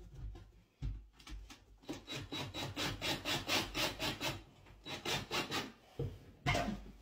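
Cordless drill driving screws into pine shelf boards, the sound pulsing about five times a second in a few short spells.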